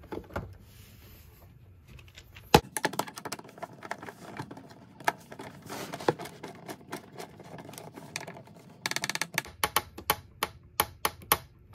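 Screwdriver working a terminal screw on the metal ground bus bar of an RV electrical panel while a ground wire is fitted. There is a sharp click about two and a half seconds in, then a run of small, irregular metallic ticks and scrapes.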